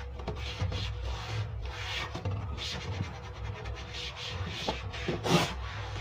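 A cloth wiping the inside of a wooden shelf compartment, in a series of short rubbing strokes, with one louder stroke near the end.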